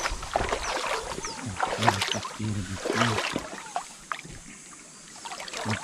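Water splashing and sloshing in a shallow river as people wade and reach among the rocks, with voices talking in the background. It goes quieter for about a second near the end.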